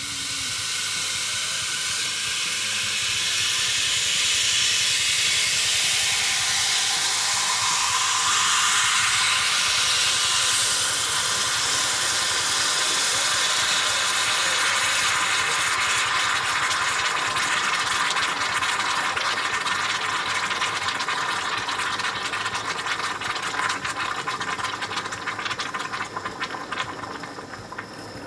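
A red-hot metal ball hissing and sizzling as it melts down through ice in a glass, boiling the meltwater into steam. The hiss builds over the first few seconds, and crackling and popping grow more frequent in the second half before easing near the end as the ball cools.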